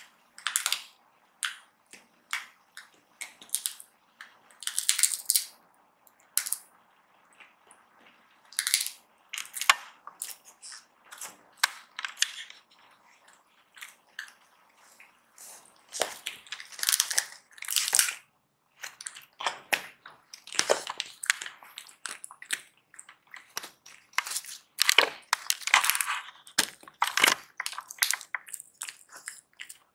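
Silver Bengal kitten crunching and chewing hard dried cod: an irregular run of crisp crunches, coming in bursts.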